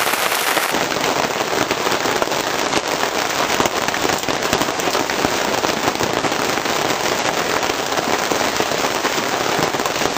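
Heavy rain pelting a sailboat, a dense, steady crackle of drops hitting the boat.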